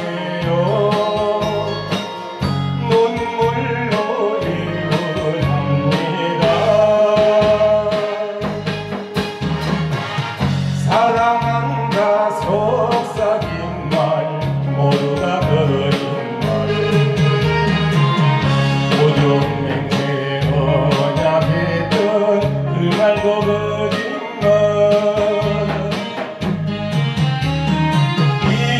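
A man singing a song into a microphone, amplified through a PA, over a musical accompaniment with a steady beat.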